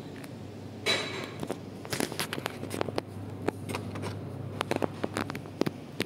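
Daikin FTNE50MV1V wall-mounted split air conditioner indoor unit running with a steady low hum, with scattered sharp clicks and crackles over it, the loudest about a second in.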